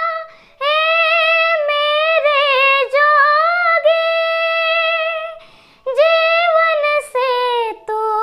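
A young girl singing solo in a high, clear voice, holding long notes with small ornaments and wavers, with short breaks for breath between phrases.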